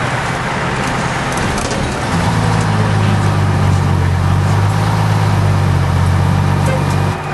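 Pierce fire engine's Detroit Diesel engine pulling steadily, heard from inside the cab while driving. About two seconds in its note drops in pitch and grows louder, holding until near the end, when it suddenly falls quieter.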